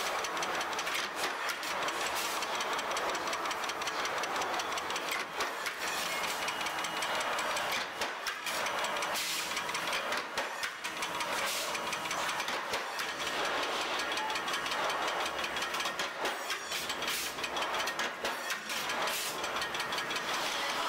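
Metalworking machinery running with a continuous dense clatter of small knocks and rattles over a steady mechanical noise.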